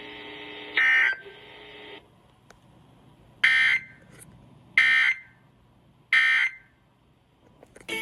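Emergency Alert System end-of-message data tones: three short screechy digital bursts, evenly spaced about a second and a half apart, which signal the end of the alert broadcast. A similar burst sounds just under a second in, over a faint steady hum that stops about two seconds in.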